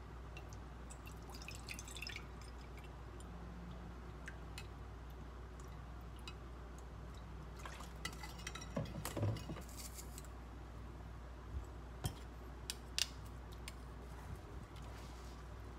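Light kitchen handling: a plastic spoon stirring liquid in a glass container, with liquid poured in from a small bottle and scattered soft clinks and taps. A short cluster of clatter comes about two-thirds of the way through.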